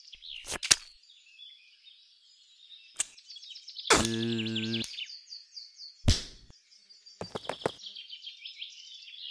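Cartoon park ambience of birds chirping steadily, with a few short sharp hits, a brief steady hum about four seconds in, and a heavy thud about six seconds in, as of a body falling flat on the ground.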